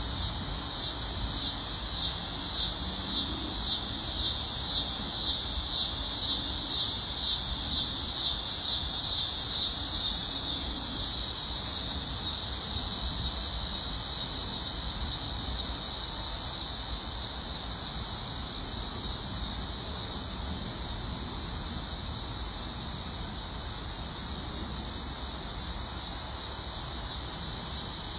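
Shrill chorus of insects in summer vegetation, pulsing about one and a half times a second for the first ten seconds or so, then settling into a steady high drone.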